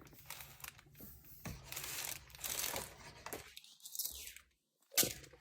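Rustling and light clicks from a handbag being handled, with one sharp click near the end.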